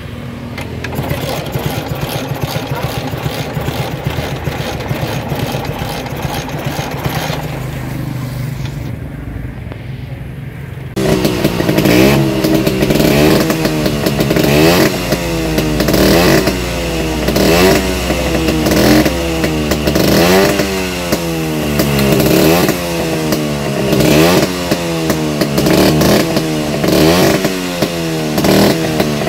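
Vespa scooter engine running during an engine test, steady at first, then suddenly louder about a third of the way in and revved hard over and over, the pitch sweeping up and falling back about once a second.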